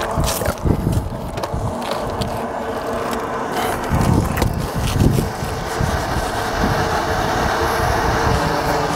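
A steady mechanical hum with low gusts of wind rumbling on the microphone, and a few light knocks near the start.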